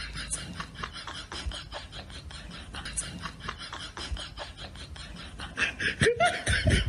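A cat's paws and claws scuffling and clicking on a wooden floor in quick, irregular taps and scrapes, getting louder and busier near the end.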